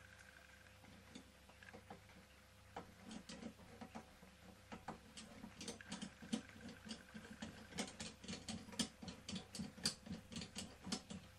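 Small Meccano-style toy steam engine clicking over at its flywheel: light metallic clicks with a soft knock under each, irregular at first and then settling to about four a second.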